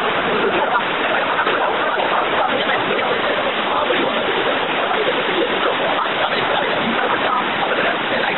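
Steady, loud rushing-water noise with no breaks, with the group's voices faint beneath it.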